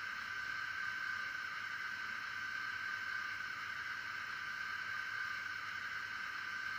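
Steady hum and hiss through a model locomotive's small sound-decoder speaker, with a constant high tone over a band of hiss and almost no bass: the standing idle sound of a model electric locomotive.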